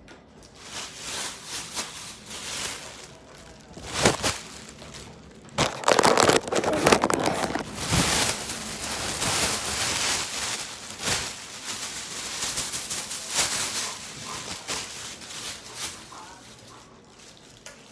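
Hands working sticky glue slime close to the microphone, making crackling, crinkling handling noise with a few louder bursts around the middle.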